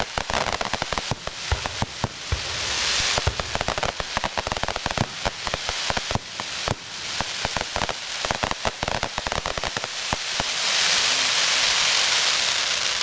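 Aerial fireworks shells bursting into crackling stars: a dense crackle of many small pops, with a few deeper booms in the first few seconds. The crackling swells loudest about ten seconds in.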